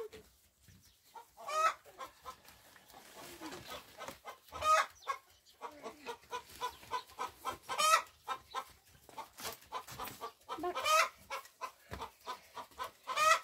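Chickens clucking, with a louder call repeated about every three seconds, five times in all, and quick short clucks in between.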